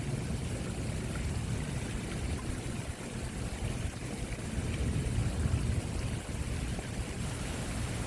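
Water rushing steadily, with a strong low rumble underneath.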